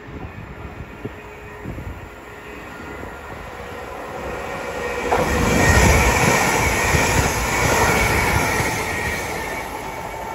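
Greater Anglia Class 720 electric multiple unit running through the station at speed without stopping. Its noise builds from about four seconds in, is loudest around six to eight seconds with a steady high tone over the rumble, then eases as the carriages pass.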